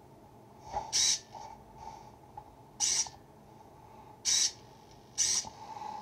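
Small hobby servo in a homemade wooden combination-lock mechanism whirring in four short bursts as it drives the lock's levers.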